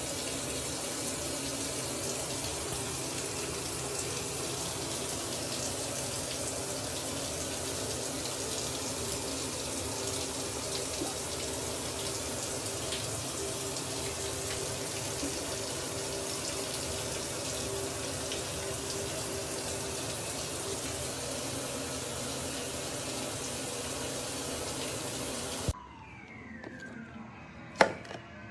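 Rain shower head running, a steady spray of water falling and splashing, which cuts off suddenly about three seconds before the end. A single sharp knock follows about two seconds later.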